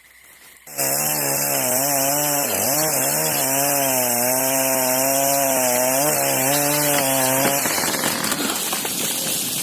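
Chainsaw running at full throttle through the back cut of a leaning fir, its engine note dipping and wavering as the bar takes the load. Near the end the engine note drops away, leaving a rushing noise that fades out.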